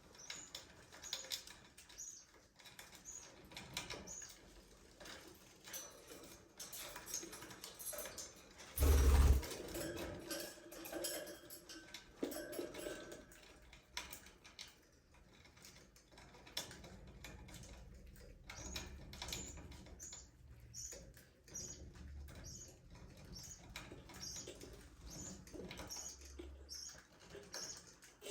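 Budgerigars chirping and chattering, with many small clicks and squeaks and, in the second half, a run of short high chirps about twice a second. A single loud thump about nine seconds in.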